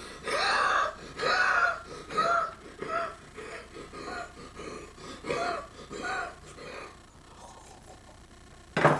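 A man breathing hard in strained, voiced gasps from the burn of a habanero pepper he has just eaten. The first gasps are long, then they come about two a second and die away after about seven seconds. A short, loud burst comes near the end.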